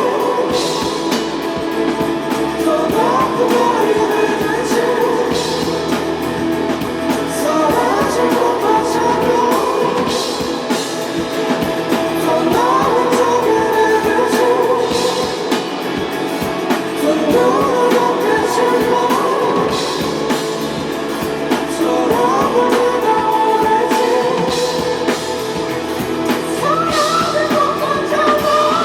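Live rock band playing at full volume, with drum kit and guitars, and a melodic lead line that bends up and down in pitch every few seconds.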